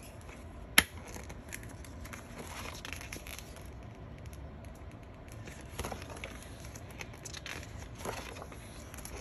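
Glossy pages of a ring-bound photobook being turned and handled, paper rustling and sliding in short bursts. A single sharp snap about a second in is the loudest sound.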